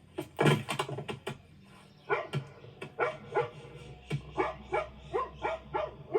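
A dog barking over and over, about two to three barks a second, after a few sharp knocks in the first second.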